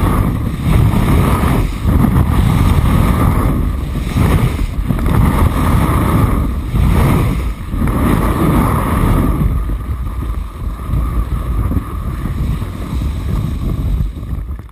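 Wind rushing over a helmet camera's microphone and skis scraping across packed snow during downhill turns, in surges every second or two. It gets quieter in the last few seconds as the skier slows.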